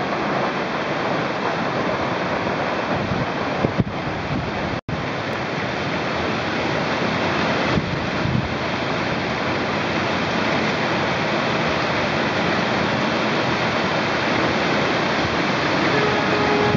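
Hailstorm: hail and heavy rain pelting down on the ground, roofs and driveway in a dense, steady rush. The sound cuts out for an instant about five seconds in.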